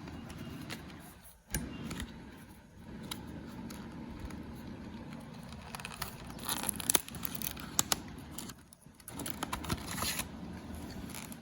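Handling noise: scattered light clicks, scrapes and crackles, busiest in the second half, as laptop and drive parts are moved about by hand.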